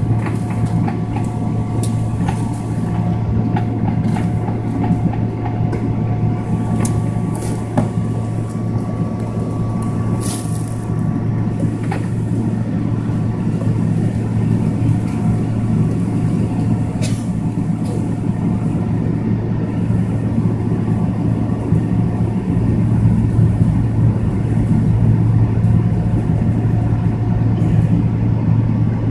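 Cabin noise of a Boeing 777-300ER taxiing: a steady low hum from its GE90 engines at taxi power, with two steady whining tones over it and occasional clicks and knocks as the aircraft rolls. It grows slightly louder over the last several seconds.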